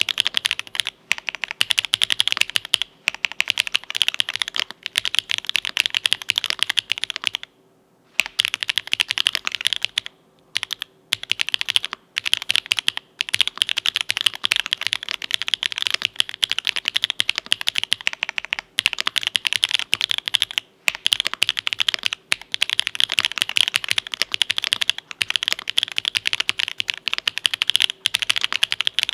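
Mechanical keyboard with lubed Owlab Tungsten linear switches (nylon housings, POM stems), an aluminium plate and GMK keycaps, being typed on rapidly in a steady stream of keystrokes. There are short pauses about 8 and 10 seconds in.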